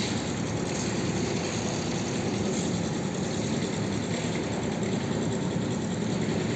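A machine running steadily with an even, low rumble that neither starts nor stops.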